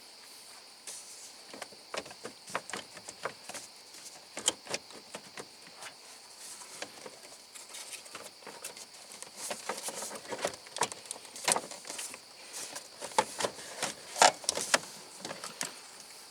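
Irregular clicks, taps and knocks, as of small parts and tools being handled, growing busier and louder in the second half, over a steady high hiss.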